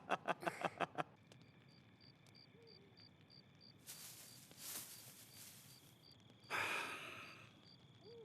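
A short laugh of quick, evenly spaced bursts in the first second. Then quiet background with a faint, regular high chirping, about three a second, and a couple of soft breathy swells, the louder one near the end.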